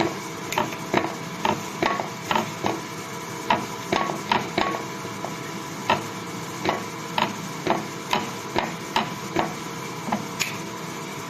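Knife chopping jalapeño on a cutting board: a run of irregular sharp knocks, about two a second, over a steady background hum.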